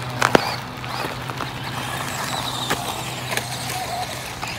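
GizmoVine GV109 1/18-scale RC truck with a brushed electric motor driving on a dirt-and-gravel path, heard as a steady low hum. Two sharp clicks about a third of a second in are the loudest sounds, with a few fainter clicks after.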